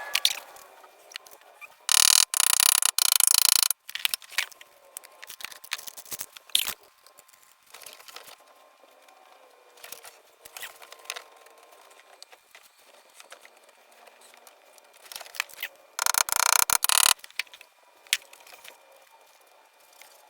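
Paintless dent repair on a car fender: light clicks and scraping of metal tools against the sheet metal, with two louder bursts of rough scraping noise, each a second or two long.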